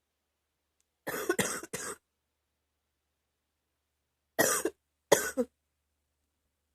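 A woman's chesty, wet cough: a quick run of three coughs about a second in, then two more coughs a few seconds later.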